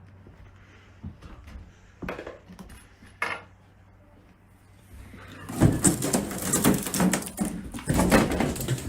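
A few scattered light clicks and a short squeak, then about five and a half seconds in a loud, rapid clatter of hard knocks and scraping that runs on to the end.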